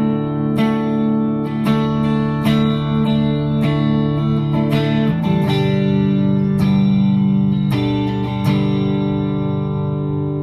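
Les Paul electric guitar on its neck pickup, played through a Bad Cat Bobcat 5R valve combo amp on a clean tone with a little reverb. Chords are struck about once a second and change about halfway through; the last chord, near the end, is left to ring.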